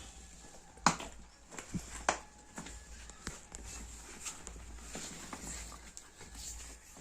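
Irregular clicks and taps of a travel duffel bag being handled, its hardware and fabric knocking and rustling; the sharpest click comes about a second in.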